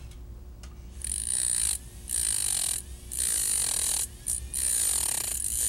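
Rotating dental separating disc cutting into the solder joint between cast crowns, shaping it. The grinding comes in about five short runs of a second or so, each with a steady high whine, separated by brief pauses.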